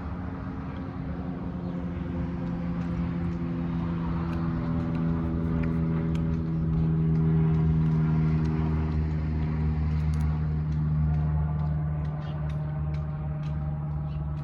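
A steady engine hum, like a vehicle idling, with its pitch drifting slightly, and a few faint clicks scattered through it.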